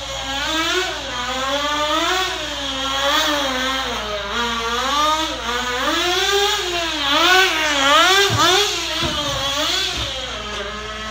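Small nitro engine of a Sportwerks Chaos 1/16 RC buggy revving up and down as it laps the track, its pitch rising and falling over and over, then holding a steady pitch near the end.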